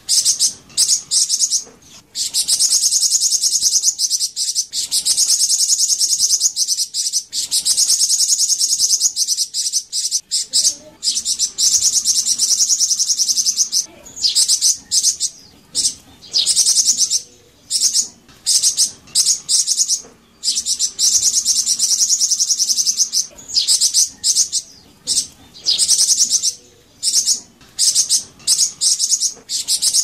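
Golden-headed cisticola (burung flamboyan) singing: high-pitched, rapid buzzing trills in phrases of one to three seconds, repeated with short pauses between them.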